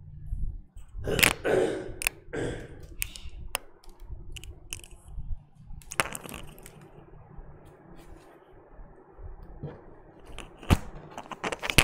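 Handling noises close to the microphone: scattered clicks and knocks with short stretches of rustling, loudest about a second in and twice near the end.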